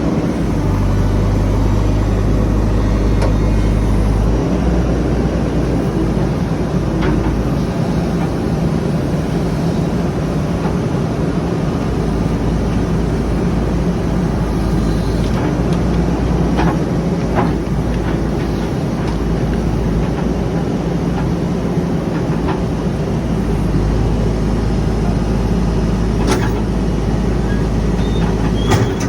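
Heavy diesel engine running steadily, its low drone stepping to a different speed about four seconds in, with a few light knocks near the end.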